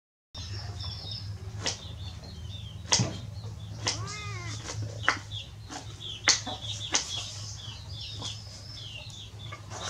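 Several sharp knocks and taps, with one short rising-then-falling animal call about four seconds in and faint high chirping throughout.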